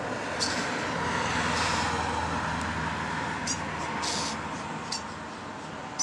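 A road vehicle passing: a broad rush with a low engine hum that swells over the first two seconds and fades away. Over it a starling gives several short, sharp high calls.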